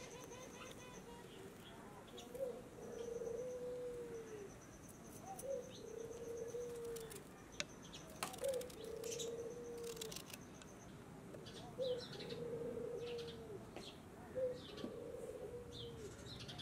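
A dove cooing over and over, about every three seconds: each call a short note followed by a longer falling one. Short scraping strokes of a knife peeling fresh ginger come between the calls, with a few sharp clicks.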